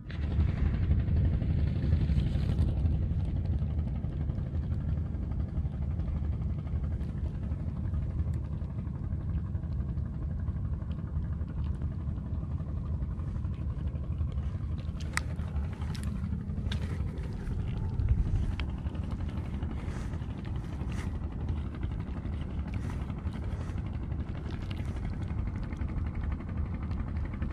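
Steady low rumble of wind buffeting an action camera's microphone by the open sea, with a few light handling clicks about halfway through.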